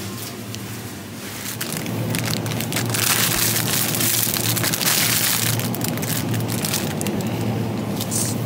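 Crinkly plastic produce bags rustling and crackling as bagged herbs are grabbed and handled, loudest about three to five seconds in, over a steady low hum.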